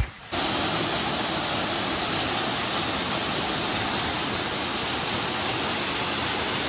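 Steady rush of a waterfall, cutting in abruptly just after the start.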